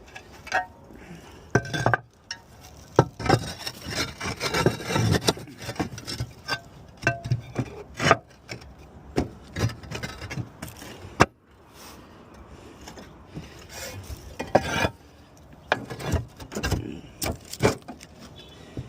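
Irregular scraping, rubbing and knocking as roof tiles are handled and shifted, with one sharp knock about eleven seconds in.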